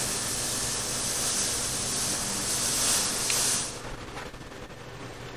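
A steady, loud hiss that cuts off abruptly a little over halfway through, leaving a quieter background hiss.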